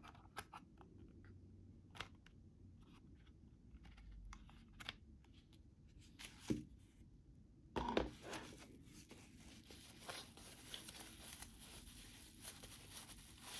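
Scattered small clicks and taps of hands handling plastic and a paper insert. About eight seconds in, thin white packing wrap is pulled open by hand, giving a sharp rustle and then continuous crinkling.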